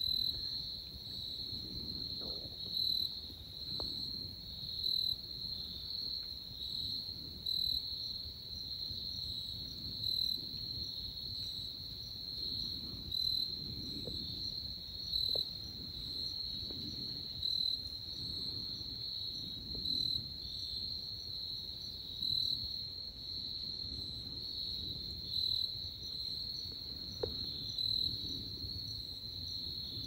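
Insects trilling steadily in a high continuous drone, with a louder chirp standing out about every two seconds. A soft low rumble and faint rustling lie underneath.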